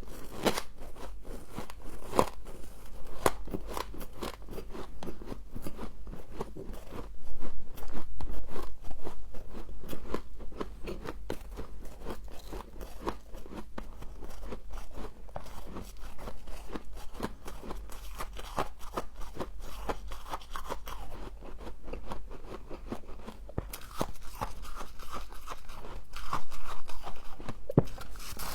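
Close-up crunching and chewing of humidifier frost, a dense run of crackly bites and crunches, louder for a couple of seconds about a quarter of the way in and again near the end. A steady low hum runs underneath.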